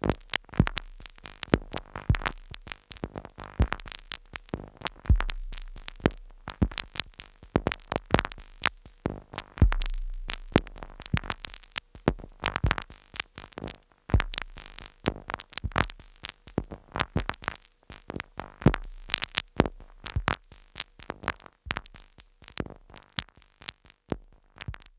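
Two Behringer Neutron analog synthesizers sequenced by a Korg SQ-10 playing glitchy electronic noise: dense, irregular clicks and short ticks broken by a few deep booming hits. It stops just before the end.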